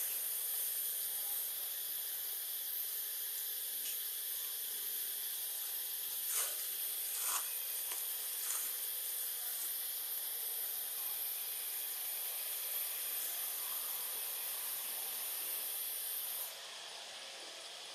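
A steady high-pitched hiss that cuts off suddenly near the end, with a few short clicks around the middle.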